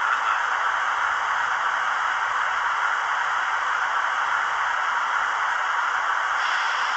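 Steady hiss of the blower fans from the sound decoder of a Märklin BR 110 model electric locomotive, played through its small speaker as it creeps along. A brighter hiss joins near the end.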